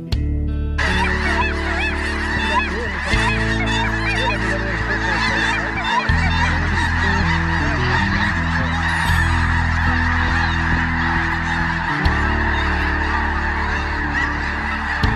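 A large flock of snow geese calling, a dense clamour of many overlapping high honks that begins abruptly about a second in and holds steady, over background music with slow sustained chords.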